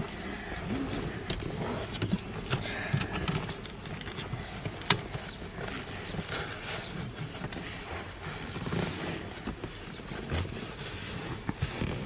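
A child fumbling a Ford inflatable rear seat belt toward its buckle. The webbing rustles against its dual retractors, and the bulky latch plate knocks and clicks at the recessed buckle. One sharp click comes about five seconds in. This is the struggle of a child trying to angle the latch plate in.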